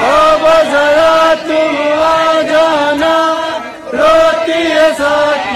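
Men's voices chanting a noha, a Muharram lament, in long held notes that waver and bend in pitch, with a short break for breath just before four seconds in.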